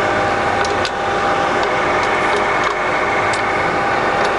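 Colchester Triumph 2000 centre lathe running under power with its feeds engaged: a steady whine of gears from the geared drive, with a few light clicks.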